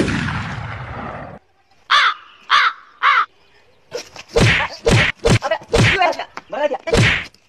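A sudden loud hit that fades away and cuts off abruptly, then three crow caws about half a second apart, used as a comic sound effect after a joke. They are followed by a run of short voice-like sounds.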